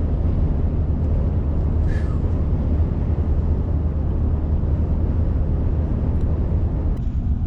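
Truck driving along the road: a steady, low rumble of engine and road noise.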